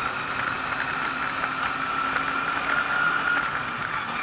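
Lada 2101 rally car's engine and drivetrain running while driving, heard from inside the cabin: a steady high whine over even road and engine noise.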